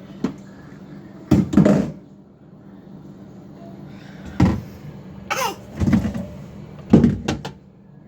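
Refrigerator door and items being handled in the fridge: about five separate knocks and clunks as things are moved around and put back on the shelves, with a short falling squeak about five seconds in.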